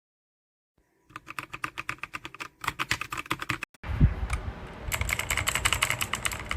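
Fast typing on a compact 68-key mechanical keyboard: rapid key clicks starting about a second in, broken by two abrupt cuts, the last stretch louder and fuller with a heavier thump near its start.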